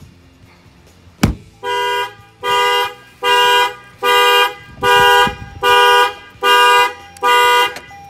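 A hand bangs once on the car window about a second in, and the 2018 Toyota Camry's factory alarm goes off, tripped by the add-on shock sensor: the horn honks eight times in a steady rhythm, about one honk every 0.8 seconds.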